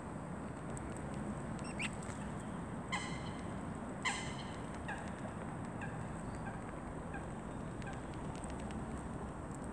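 Two short, pitched animal calls about three and four seconds in, then a run of fainter, evenly spaced short calls, over a steady background hiss.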